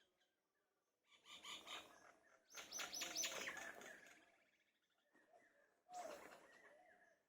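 Common mynas calling: three bursts of mixed chattering and whistled notes with short gaps between them.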